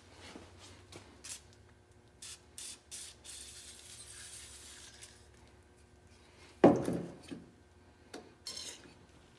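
Hands working parts of a fuel pump assembly: scattered small clicks and rubbing, a stretch of hissy scraping, and one louder knock about two-thirds of the way through.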